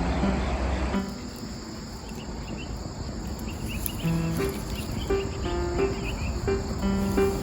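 Insects chirping in short, rapid trills, like crickets in the grass. Soft background music plays steady held notes underneath.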